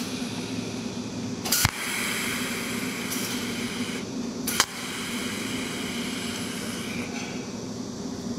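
Cold welding machine (pulse-discharge welder) firing onto the seam of a copper-to-brass tube joint: two sharp snaps of the weld pulse, about a second and a half in and again three seconds later, over the machine's steady hum.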